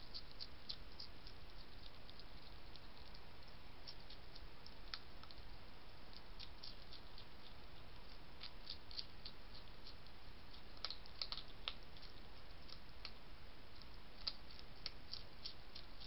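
A European hedgehog chewing and crunching dry food from a dish: irregular crisp clicks coming in short runs, over a steady background hiss.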